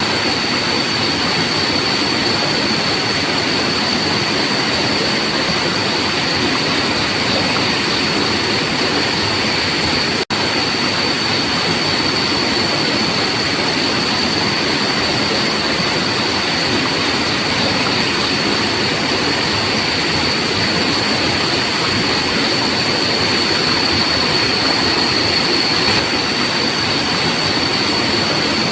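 Steady rushing noise of flowing water, with a steady high-pitched insect drone over it. The sound cuts out for an instant about ten seconds in.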